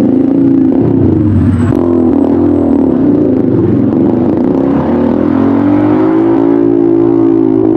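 Motorcycle engine running loud through an aftermarket exhaust muffler, being revved. Its pitch dips about two seconds in, then climbs again and holds at a higher speed.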